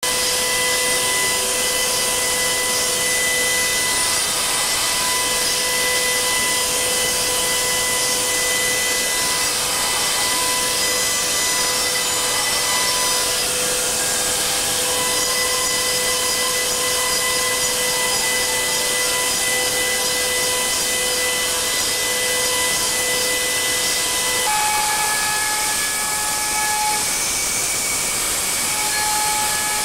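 CNC milling machine high-speed hard milling HRC40 tool steel: a steady cutting hiss with a high, steady whine, whose pitch shifts higher about three-quarters of the way through.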